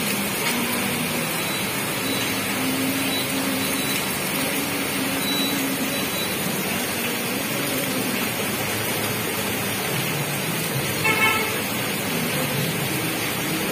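Heavy rain pouring down steadily over a street, with a faint low vehicle engine hum in the first half. A vehicle horn toots once, briefly, about three-quarters of the way through.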